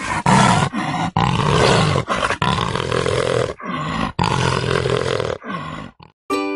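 Leopard growling and snarling in a run of growls broken by short pauses, stopping about six seconds in.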